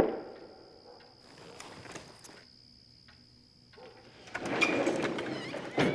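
A sharp knock at the start, then pigeons cooing near the end.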